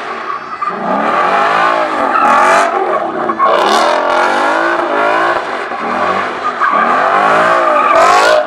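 Ford Mustang GT's V8 through a Corsa Extreme exhaust, revving up and down again and again while the rear tyres spin and squeal in a donut. Several short screeches of tyre noise rise over the engine.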